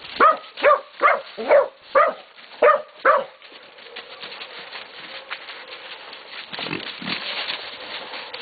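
Catahoula and Black Mouth Cur pups baying a hog: a quick run of about seven loud barks, two to three a second, over the first three seconds, then quieter scuffling with a couple of low grunts from the hog near the end.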